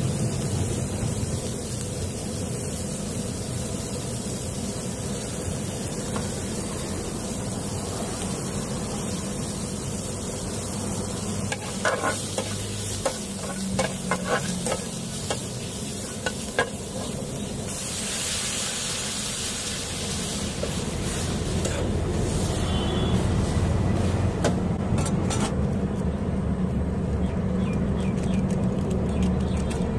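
Chopped vegetables and masala sizzling in a steel pan, with a spatula scraping and knocking against the pan for several seconds around the middle. About two-thirds of the way through, a louder, brighter hiss takes over.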